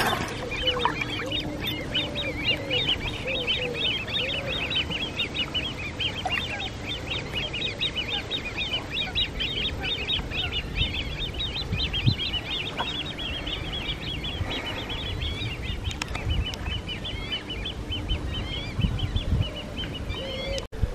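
Birds calling at a lakeside: a rapid, continuous high chattering of short chirps, with a few lower calls in the first few seconds.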